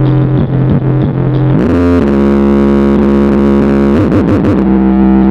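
Loud, distorted electronic music with heavy sustained bass played through a large 'horeg' carnival sound system (Blizzard Audio) during a sound check. The notes step up in pitch about two seconds in and slide back down about four seconds in.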